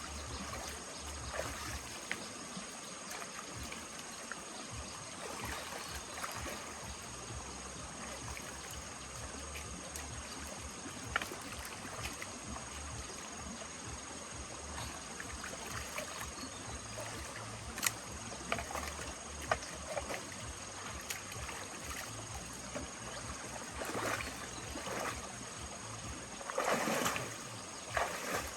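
Water sloshing and splashing, with scattered sharp knocks and clicks, and louder splashes near the end.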